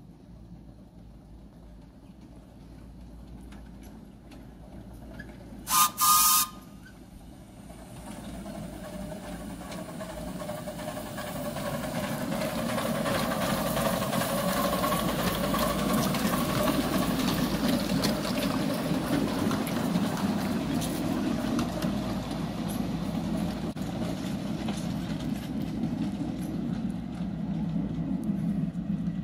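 Miniature 7¼-inch gauge steam locomotive giving two short toots on its whistle about six seconds in. It then approaches and runs past, the rumble of the engine and its wheels on the rails growing louder from about eight seconds in and staying loud to the end.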